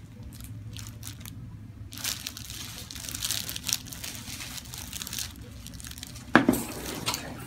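Soft rustling and crinkling as a chiropractor's hands shift and reposition a lying patient's head and neck on a treatment table. There is one sharp, loud knock or thump about six and a half seconds in.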